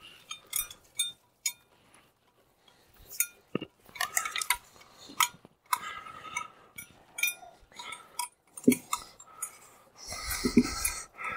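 Irregular light metallic clinks and clicks, some with a short ring, as small metal hardware is handled. A brief rustle comes near the end.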